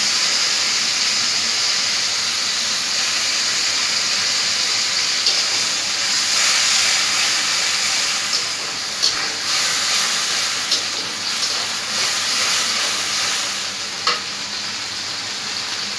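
Vegetables and sauce sizzling in a hot pan with a steady hiss of frying and steam, as soy and tomato sauce hit the hot pan and the mix is stirred with a spatula. A few short clicks of the spatula against the pan come in the second half.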